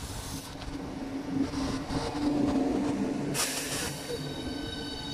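Southeastern Class 395 Javelin electric multiple unit running in along the platform with a steady electric hum. About three and a half seconds in comes a short hiss, and then several high, steady whining tones start.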